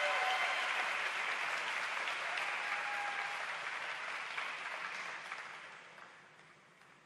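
Audience applause, steady at first, then dying away over the last two seconds or so.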